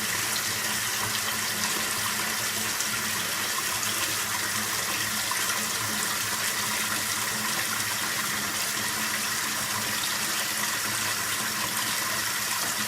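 Kitchen sink faucet running at a strong, steady flow into a stoppered basin, filling it to test a newly installed sink strainer for leaks.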